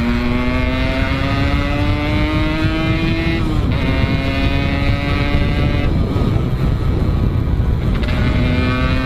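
135cc motorcycle engine pulling under way, its pitch climbing steadily through a gear, dropping at a shift about three and a half seconds in, then lost under low wind and road rumble for about two seconds before climbing again near the end. Its carburettor's main and pilot jets are not yet set, which the rider says still makes it bog at times.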